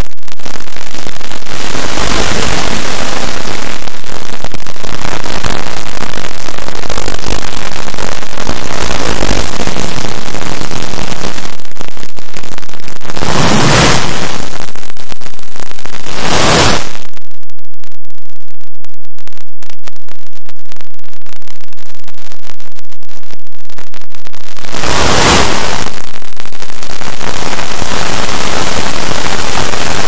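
Harsh static-like noise, clipped at full volume, from audio wrecked by heavy digital distortion effects. It brightens in short swells about 13, 16 and 25 seconds in.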